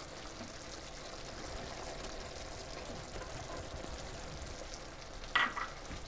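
Chicken curry sauce simmering in a pan with a steady, quiet sizzle. A brief sharper sound, likely a utensil touching the pan, comes about five and a half seconds in.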